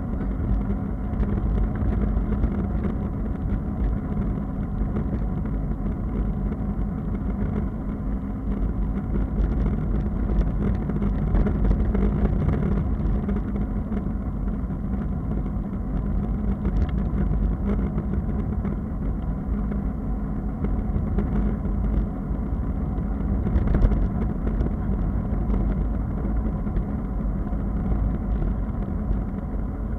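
Steady wind rumble on the microphone of a bicycle-mounted camera riding along a wet road, mixed with tyre hiss; muffled, with little in the upper range. One brief louder knock about three-quarters of the way through.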